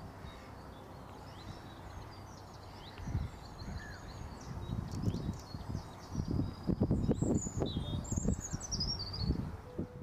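Small birds singing and chirping, with a louder run of song near the end. Low rumbles come and go from about three seconds in and are the loudest sound.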